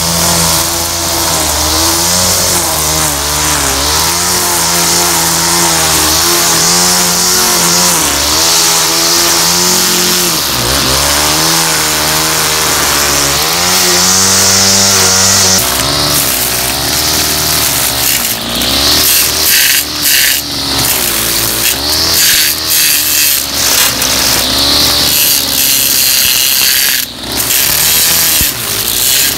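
Homelite Bandit SX-135 25cc two-stroke string trimmer engine running, its pitch rising and falling as the throttle is worked. After about 16 seconds the running turns choppier, with many brief dips in level.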